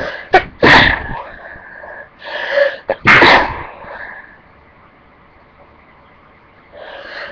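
A person sneezing twice, about two and a half seconds apart, each sneeze preceded by a drawn-in breath. Another in-breath begins near the end.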